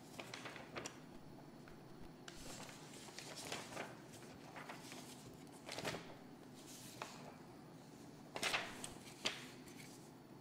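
Sheets of paper rustling as they are handled and leafed through, in several short bursts, the loudest near the end.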